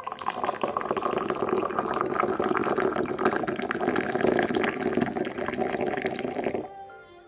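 Moroccan tea poured in a steady stream into a tall glass, splashing as the glass fills and froths; the pouring stops shortly before the end.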